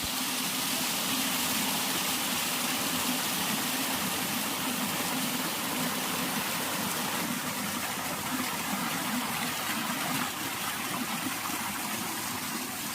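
Waterfall: water pouring down onto rocks, a steady rushing noise.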